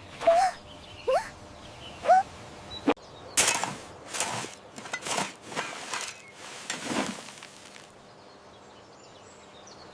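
Sound effects: three short rising chirps about a second apart, a sharp click, then five swishing whooshes about a second apart, fading to a quiet steady background near the end.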